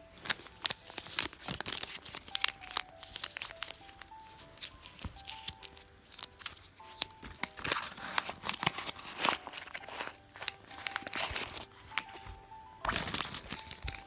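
Plastic packaging crinkling and rustling with many small clicks and taps as it is handled and torn open, over soft background music with a simple stepping melody.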